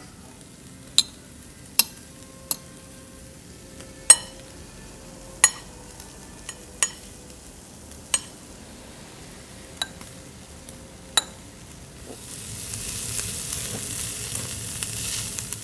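Beef kalbi grilling on a yakiniku table grill, close to the microphone: about ten sharp pops of spitting fat, then about twelve seconds in a louder, steady hissing sizzle builds as the fat flares up into flame.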